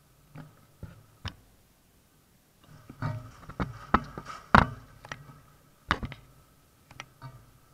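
Window glass knocking and tapping irregularly as hurricane winds drive rain and debris against it: three taps in the first second and a half, a dense cluster from about three to five seconds in, then a few more near the end.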